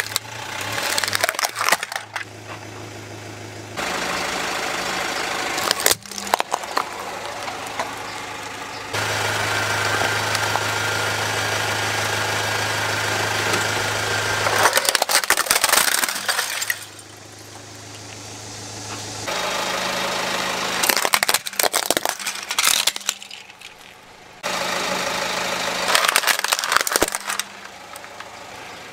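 Plastic toy vehicles cracking and crunching under a slowly rolling car tyre in several short bursts, over the steady low hum of the car's idling engine. The sound changes abruptly a few times between separate takes.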